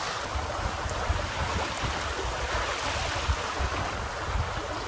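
Water rushing and splashing along the hull of a small trailer-sailer under sail, with wind buffeting the microphone.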